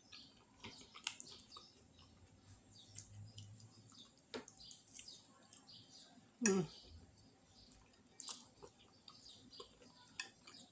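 Close-miked chewing and soft mouth sounds of someone eating shrimp and vegetables, with scattered light clicks of a fork in the dish. About six and a half seconds in comes one short, louder vocal sound that falls in pitch.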